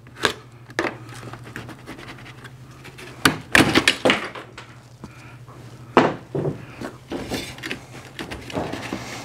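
Knocks and thumps of an aluminum camper window frame being worked loose by hand from the trailer's skin, still stuck by old sealant around its edges. A cluster of louder knocks comes about three and a half seconds in and another at about six seconds.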